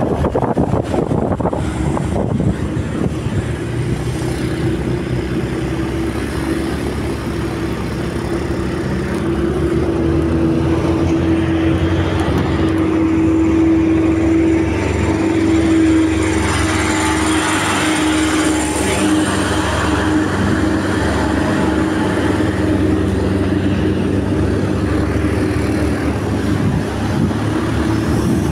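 Motorcycle riding along an open road: the engine runs steadily under tyre and wind noise. In the middle, while passing a dump truck, a stronger steady engine tone and a louder hiss swell, then ease off.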